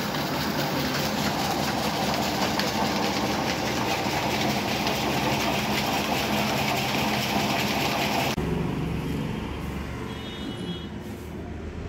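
Belt-driven flour and spice mill machinery running: grinders turned by flat belts and pulleys from a line shaft, making a steady, dense mechanical noise. About eight seconds in it changes abruptly to a quieter, deeper hum.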